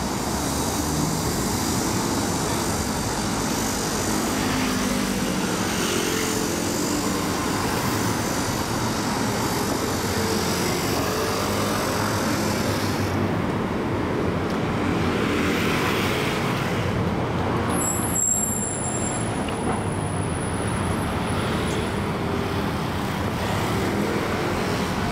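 Steady road traffic noise from passing cars and trucks on a city street. The high hiss thins out about halfway through.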